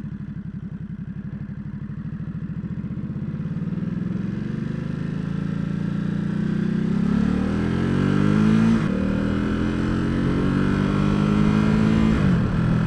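2017 Ducati SuperSport's 937 cc L-twin pulls away from low revs with an even pulse, then accelerates hard, its pitch climbing. The pitch drops sharply at an upshift about nine seconds in, climbs again, and drops at another upshift near the end.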